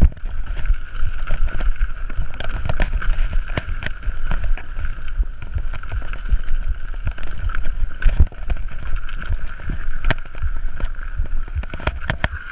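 A mountain bike descending rough singletrack: wind buffeting the action-camera microphone in a low rumble, with the bike rattling and clacking over roots and bumps, and a steady buzzing tone underneath.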